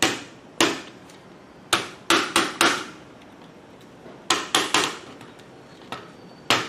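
A series of sharp knocks or taps, about nine in all, coming singly and in quick groups of two or three with short pauses between, each with a brief ringing tail.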